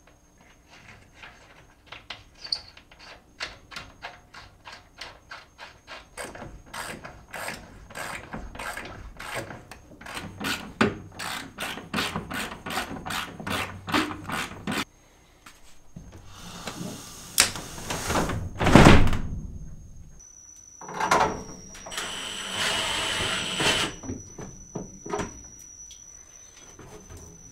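A hand ratchet clicking in a long, fast, even series as a fastener is turned down, followed later by a few louder scrapes and knocks.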